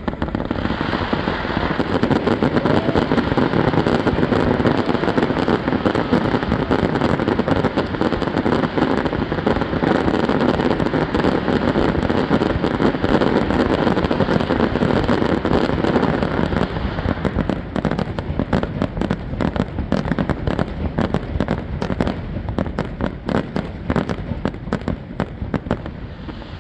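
Fireworks display: a dense, continuous barrage of bursts that starts suddenly, then thins about two-thirds of the way through into many separate sharp crackling pops that fade toward the end.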